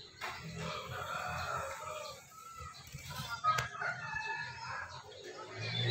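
A chicken calling faintly, with a single light click about three and a half seconds in.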